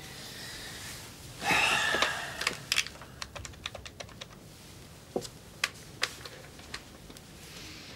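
A telephone handset lifted with a rustle, then a number punched in on push-button keys: a quick run of sharp key clicks followed by a few slower ones.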